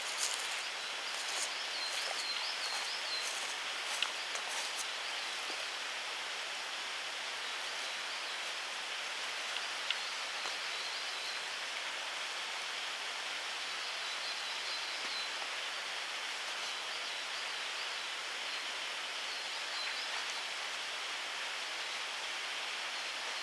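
Steady outdoor background hiss with a small bird singing repeated looping high notes, over the first few seconds and again briefly about two-thirds of the way through. A few light rustles and clicks sound in the first few seconds.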